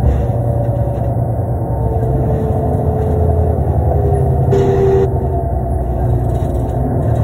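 Ride noise heard from inside a 2005 New Flyer D35LF transit bus under way: its Cummins ISL diesel engine and Allison B400R automatic transmission running with a steady low rumble.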